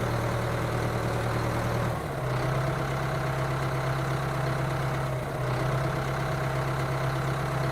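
Steady running hum of a motor driving a mini tractor toy, like an engine idling, with a slight change in pitch about two seconds in.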